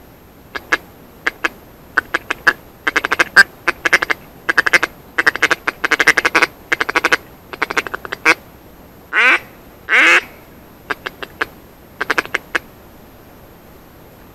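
Duck call (манок) blown in a quacking sequence to draw passing ducks to the decoys. It goes from a few single quacks into fast runs of quacks, then two longer notes that sweep in pitch about nine and ten seconds in, and ends with a short run near the end.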